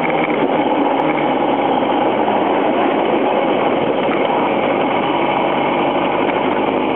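Motorcycle engine running with rushing wind noise as the bike slows from about 65 to under 30 km/h, engine braking on a closed throttle. The level stays steady throughout.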